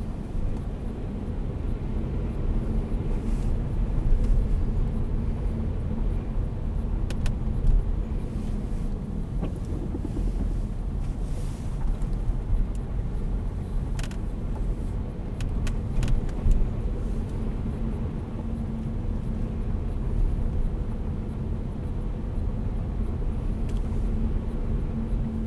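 Saab 9-5 2.3t's turbocharged four-cylinder engine and tyres heard from inside the cabin as the car drives slowly on a wet street: a steady low rumble with a faint hum, and a few light clicks.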